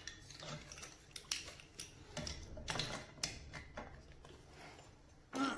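Adjustable spanner clicking and scraping on the brass compression nut of an old 20mm stop tap as the tight nut is worked loose: a string of faint, irregular metallic clicks. A brief louder noise sounds near the end.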